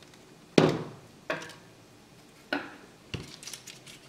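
About four sharp clicks and knocks, the loudest about half a second in, the last trailing into a short rattle: flush wire cutters trimming thin 30-gauge beading wire and being handled and set down on the tabletop.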